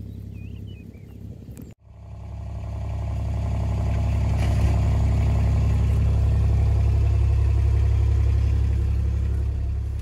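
A lamb bleats briefly at the start. Then a farm utility vehicle's engine drones steadily, heard from inside its cab as it drives across a field, swelling over about two seconds and then holding.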